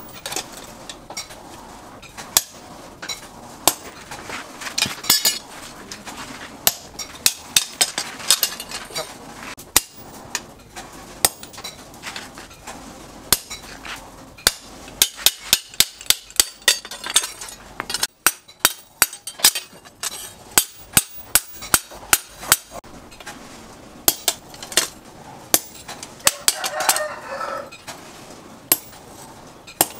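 Hand hammer striking a red-hot leaf-spring-steel knife blade and a hand punch on a steel post anvil, driving a hole through the blade. The blows come in quick clusters with ringing metallic clinks. A rooster crows once near the end.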